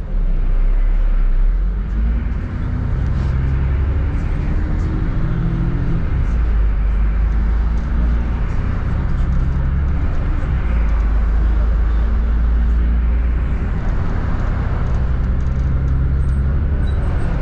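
London double-decker bus driving, heard from on board: a steady low rumble of engine, drivetrain and road, with a hum that rises in pitch a few times as the bus picks up speed.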